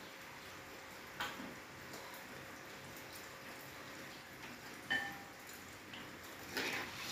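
Broth in a metal wok simmering on a gas stove, a faint steady bubbling hiss. A small knock comes about a second in, a short metallic clink near five seconds, and a rustle near the end as the wok is gripped with an oven mitt.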